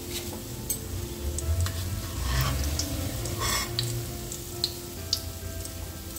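Paneer koftas sizzling in oil in a metal kadhai, with scattered light clicks and scrapes of a spoon against the pan as the fried koftas are lifted out.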